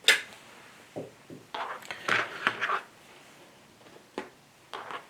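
Fabric rustling and light taps as a stuffed appliqué is handled and positioned on a terrycloth baby blanket, with a sharp click at the start and a cluster of rustles in the middle.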